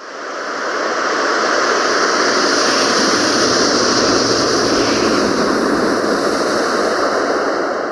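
Wind rushing in a strong, steady gust that swells up over the first second and starts to die away near the end.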